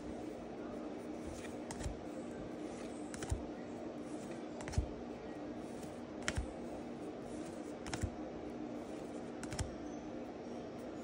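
Pokémon trading cards being moved one at a time from the back of a hand-held stack to the front, each change a light click or flick of card stock, about one every second and a half. A faint steady low hum runs underneath.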